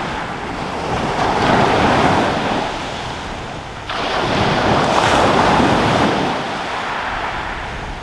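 Waves breaking and washing on a shingle beach, surging in twice, the second surge coming in abruptly about four seconds in, with wind rumbling on the microphone.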